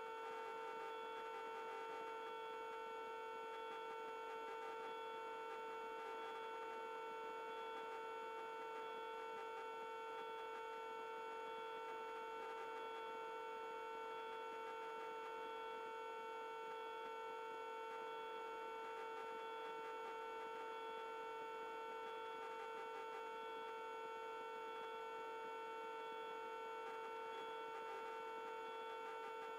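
A steady whine with evenly spaced overtones, unchanging throughout, in the helicopter's intercom audio feed.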